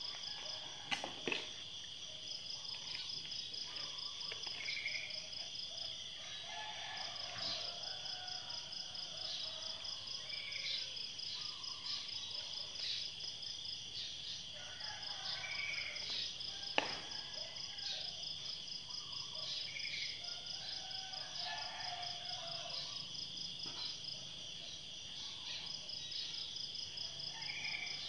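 Steady chorus of insects shrilling: a continuous high whine with a fast pulsing trill above it. A short bird chirp repeats every few seconds, and a few sharp knocks come about a second in and again about 17 seconds in.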